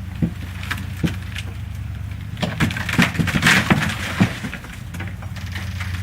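An engine running steadily, under a series of cracks and knocks from wood and debris breaking. The knocks come singly at first and bunch into a dense crackling run a little past the middle.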